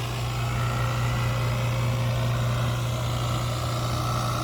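Crane engine running steadily during a lift, a constant low drone with a hiss above it.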